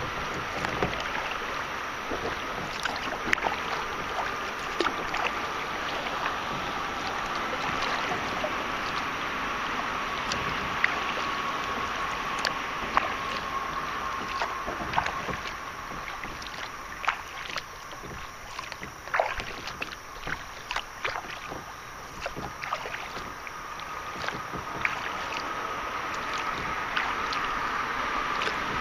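River water rushing past a kayak in choppy current, with many short splashes and drips from paddle strokes. The rush eases a little past the middle.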